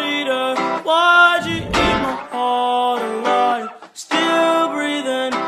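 Guitar-led intro music in short held chords, with a low hit about a second and a half in.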